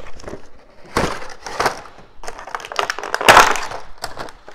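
Cardboard toy box being torn open by hand: a series of ripping and crunching tears, the loudest about three seconds in.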